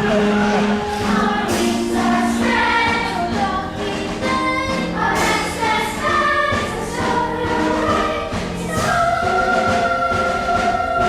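Youth theater cast singing a stage-musical song in chorus with musical accompaniment, ending on a note held for about two seconds.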